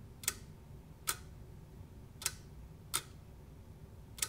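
Bi-xenon projector's cutoff-shield solenoid snapping as it is switched with a 9-volt battery, five sharp clicks about a second apart, done to check that the cutoff works.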